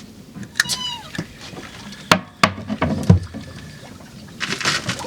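Sharp knocks and clicks, the loudest about three seconds in, with a short falling whistle-like tone near the start and a brief rushing hiss near the end.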